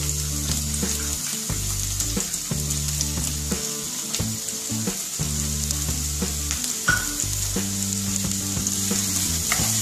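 Freshly chopped onions sizzling in hot vegetable oil in a non-stick frying pan, a steady hiss with a few small clicks.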